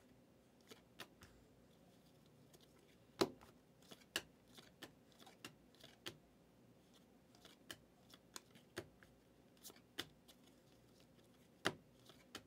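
Faint, irregular clicks and flicks of glossy Panini Prizm football cards being slid off a stack one at a time, with a few sharper snaps.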